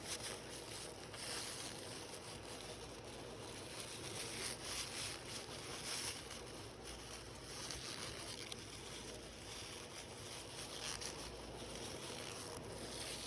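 Faint steady hiss with light rustling and small scattered knocks throughout, like small objects being handled.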